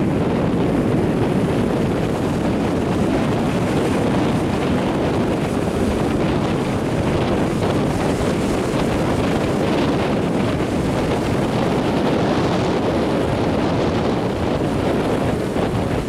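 Wind buffeting the microphone over small waves washing up a sandy beach, a steady rushing noise without a break.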